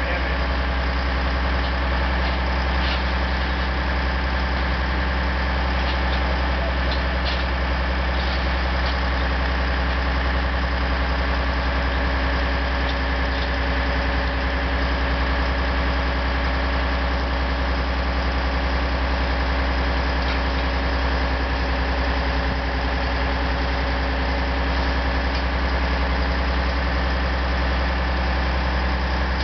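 An engine idling steadily, a constant low drone with no change in speed.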